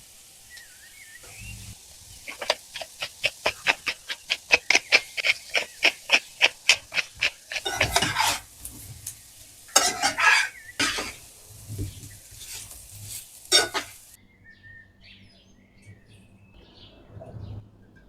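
Kitchen utensil working food at a quick, even pace, about four or five strokes a second, then a few louder scraping clatters. Faint bird chirps follow once it stops.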